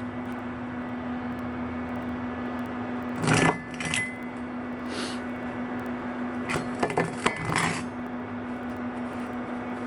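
Steel parts clinking and clattering against each other in two short clusters, one about three seconds in and one about seven seconds in, each clink with a brief ring. A steady machine hum runs underneath throughout.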